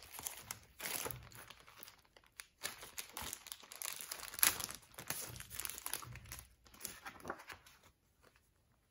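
Clear plastic sleeve crinkling and a paper booklet rustling as the booklet is pulled out of the sleeve and laid down: irregular rustles and small crackles, dying away near the end.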